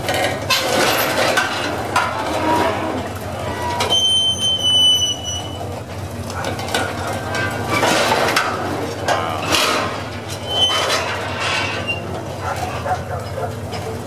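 The Walking Beast, a large steel walking machine, clanking and clinking as its legs step, over a steady low mechanical hum. A brief high-pitched squeal sounds about four seconds in.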